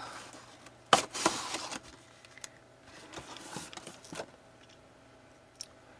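Cardboard toy box with a clear plastic window being opened and its inner display tray slid out: crinkling, scraping and crackling of card and plastic in several bursts, the loudest a sharp crackle about a second in. The handling stops after about four seconds.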